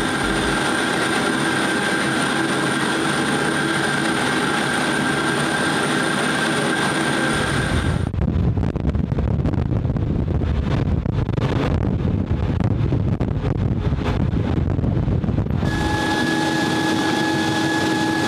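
Jet aircraft engine running: a steady roar with a high whine. About eight seconds in, the whine drops out for several seconds under a heavy low rumble, then returns at a slightly different pitch.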